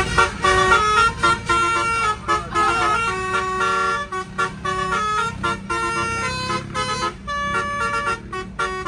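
Telolet musical air horn on a bus playing a quick tune of short stepped notes, often two or three at once, over engine and road noise. It cuts off suddenly near the end.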